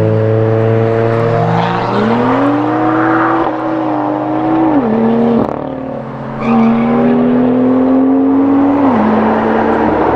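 Subaru Impreza STI's turbocharged flat-four accelerating away on track, its pitch rising then stepping down with a gear change about five seconds in. Then a second car's engine, the Nissan GT-R's twin-turbo V6, comes in loud, climbs slowly in pitch and steps down near the end.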